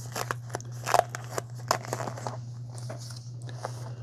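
Paper sleeve around a tablet being unsealed at its taped flap and pulled open: irregular crackling and crinkling of paper with a few sharp snaps, over a steady low hum.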